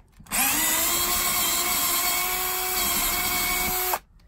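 Cordless drill running at full speed on a lag screw fastening the camper floor to the aluminum frame: a steady high motor whine that spins up just after the start, holds for a little under four seconds and cuts off sharply.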